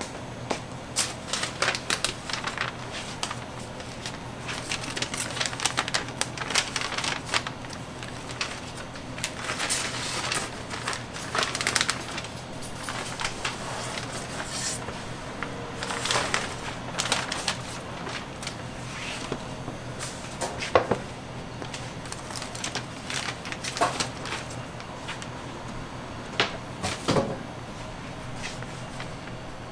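Parchment paper rustling and crinkling as it is peeled off a large baked sponge cake by hand, with many scattered sharp clicks and a few light knocks of handling.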